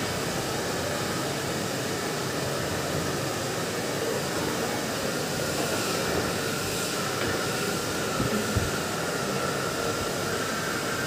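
Steady rushing hum of a motor-driven air blower, with a faint steady whine above it. A brief low thump about eight and a half seconds in.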